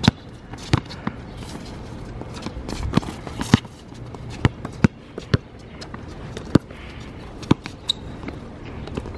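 A basketball being dribbled on an outdoor hard court: about a dozen sharp bounces at an uneven pace.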